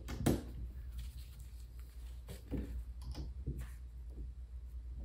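Light clicks and taps of toy wrestling ring parts being handled as a rope and turnbuckle pad are fitted to a corner post, with one sharper click about a third of a second in and a few softer knocks later.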